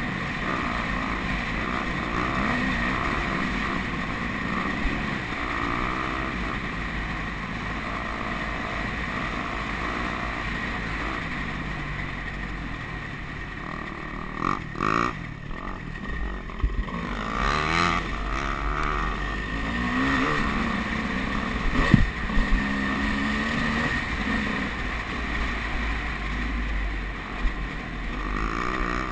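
Dirt bike engine running under the rider, its revs rising and falling, with a low wind rumble on the camera. A sharp knock about two-thirds through.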